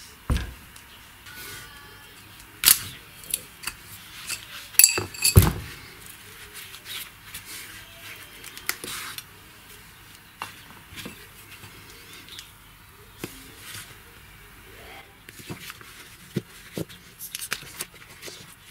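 Scattered metallic clinks and knocks as a car CV-joint drive shaft and hand tools are handled and worked on at a workbench, with the sharpest strikes about three and five seconds in.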